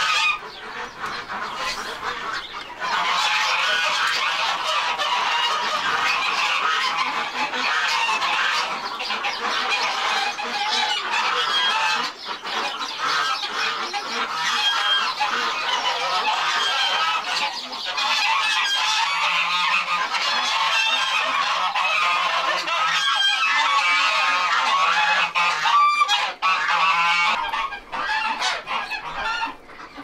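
A flock of domestic ducks and geese calling over one another in a dense, continuous chorus that grows loud about three seconds in.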